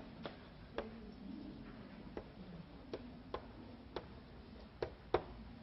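Light, sharp taps at uneven intervals, about eight in all, over a faint room hum.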